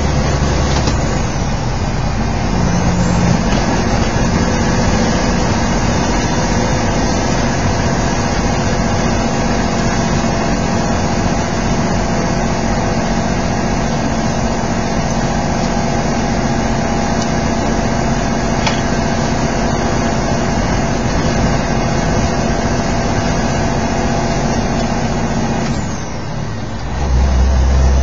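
Steady drone of a semi truck's engine and tyres on a wet road, heard from inside the cab. Near the end it dips for a moment, then a deeper rumble comes in.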